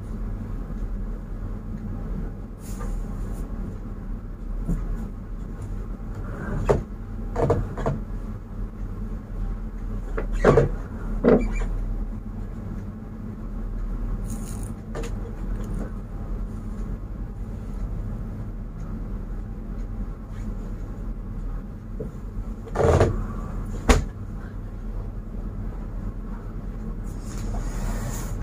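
Furniture and cushions being moved by hand: scattered knocks and thumps over a steady low hum, the loudest pair near the end.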